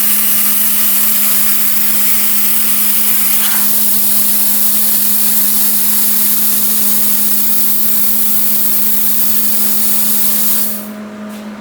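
PrimeWeld Cut60 plasma cutter blowing a steady hiss of post-flow air through the torch after the cut, cooling it, with a steady hum from the machine underneath. The air cuts off suddenly near the end, leaving the hum.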